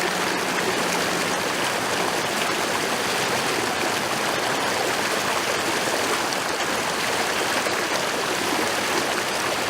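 Rushing floodwater runoff from heavy rain, a steady flowing-water sound.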